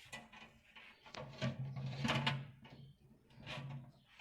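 Cookware being handled: light knocks, clicks and scrapes as a pot and its contents are set in place, with a faint steady hum underneath for stretches.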